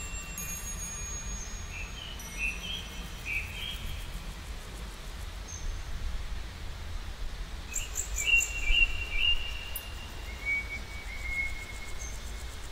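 Birds calling in short chirps, in clusters about two seconds in and again around eight seconds in, with a longer note near the end. A steady low rumble sits underneath.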